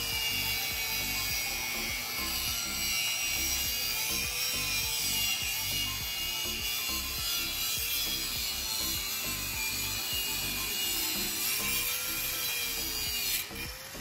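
A power tool grinding or sanding with a continuous rasping hiss, its motor tone wavering up and down as the load changes. It briefly drops away just before the end.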